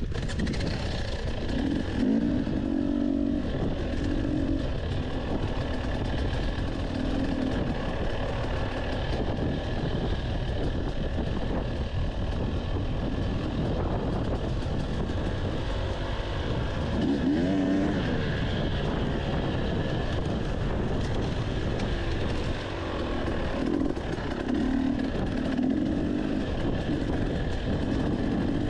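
Dirt bike engine running as the bike is ridden along a trail, heard close up from on the bike, with the revs rising and falling in surges about two seconds in, around the middle, and over the last few seconds.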